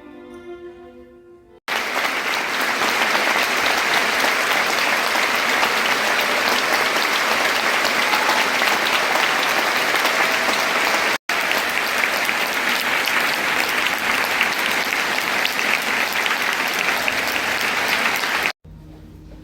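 The last notes of the string music fade away, then about two seconds in an audience's applause cuts in and runs as a steady loud clapping, with a split-second break partway through, until it cuts off suddenly near the end.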